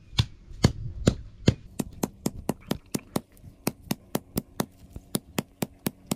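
Small iron adze (basula) repeatedly pounding a bundle of green bhimal stalks against a stone slab: sharp knocks, about two a second at first, quickening to about four a second after a couple of seconds. The stalks are being beaten to loosen their outer bark and fibres.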